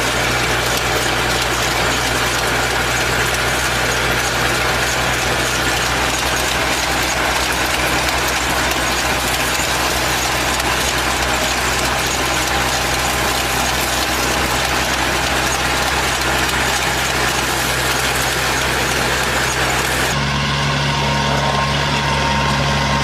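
Engine of farm harvesting machinery running steadily, with a dense mechanical clatter over a low hum. About twenty seconds in the sound changes abruptly to a different steady engine hum.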